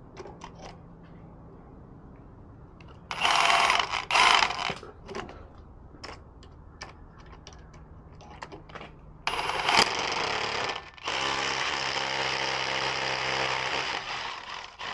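Milwaukee M18 Fuel cordless drill running in bursts as a conduit clip is fixed to a rendered masonry wall: two short bursts a few seconds in, then a longer, steadier run of about five seconds near the end.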